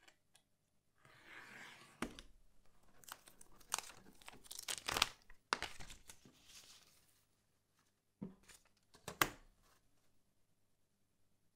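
Printed paper sheet rustling and crinkling as it is handled, lifted and turned over on a cutting mat, with several sharper crackles in the middle, then two short knocks near the end.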